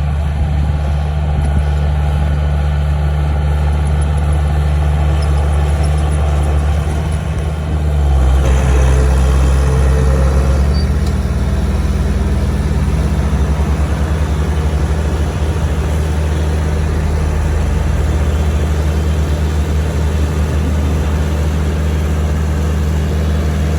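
Komatsu D31A bulldozer's diesel engine running steadily. It grows louder and changes pitch about eight seconds in, then settles at a slightly different steady note a few seconds later.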